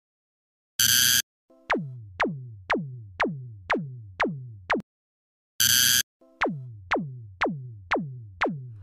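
Cartoon railroad crossing warning sound effect: a steady run of quick electronic blips that each drop sharply in pitch, about two a second. The run breaks off twice for a moment, and each time restarts with a short, loud, harsh buzz.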